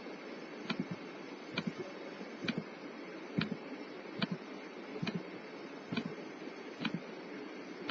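Computer mouse clicked at a steady pace, nine clicks a little under a second apart, each adding a point to the arch curve being drawn in dental implant-planning software.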